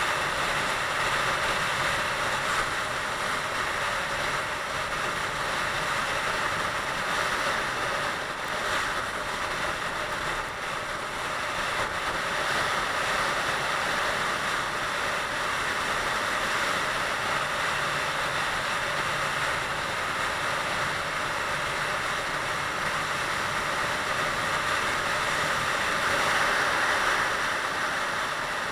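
Steady rush of wind and road noise on the microphone of a Honda CBR125R motorcycle riding at speed, with the bike's single-cylinder engine running underneath.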